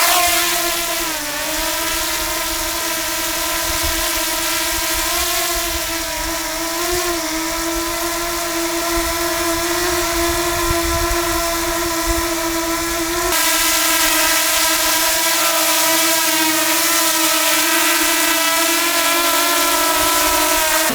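Small DJI quadcopter drone hovering, its propellers giving a steady pitched whine with a hiss. The pitch dips slightly about a second in, then holds level with a small waver.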